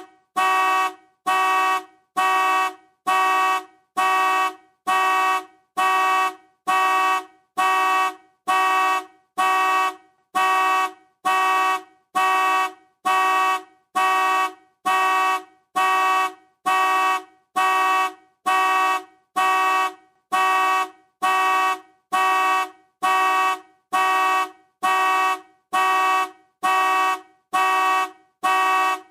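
Car alarm sounding the car's horn in short, evenly spaced honks, about one a second, without pause.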